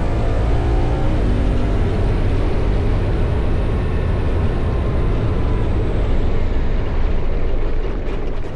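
Off-road side-by-side (UTV) engine running steadily while under way, with a dense rushing noise and deep rumble.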